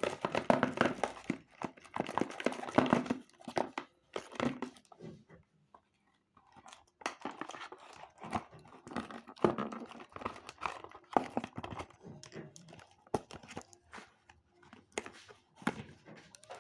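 Plastic and cardboard toy packaging crinkling, rustling and clicking in irregular bursts as a stuck toy figure is worked loose from its box, with a brief lull partway through.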